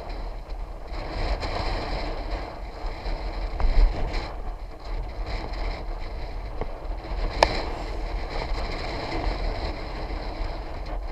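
Wind buffeting the microphone over steady rolling noise while riding, with one sharp click about seven seconds in.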